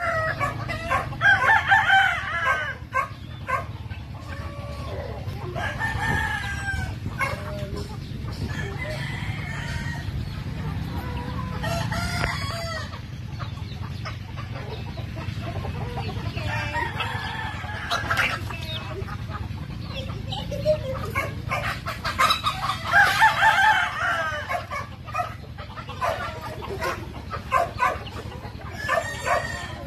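A mixed flock of chickens clucking and calling while feeding, with roosters crowing among them. The calls are busiest near the start and again about three-quarters of the way through, over a steady low hum.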